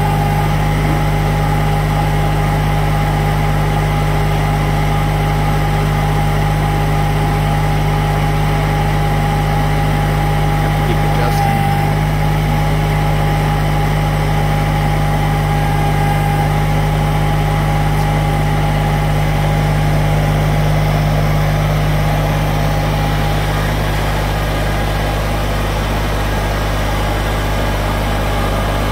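Kubota compact tractor's diesel engine running steadily, with a steady whine above the engine note.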